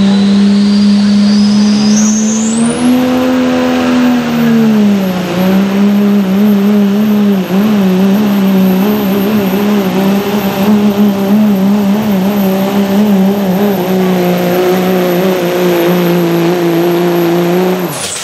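Dodge Ram's Cummins 5.9 inline-six diesel running flat out under load while pulling a sled. A high turbo whistle climbs over the first few seconds and then holds. From about five seconds in the engine note wavers, and near the end engine and whistle fall away suddenly as the run ends.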